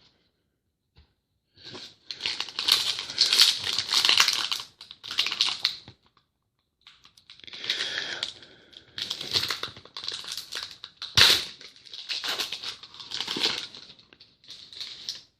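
Plastic trading-card pack wrapper crinkling and tearing as a pack is opened by hand, in two long stretches of rustling with a sharp snap about eleven seconds in.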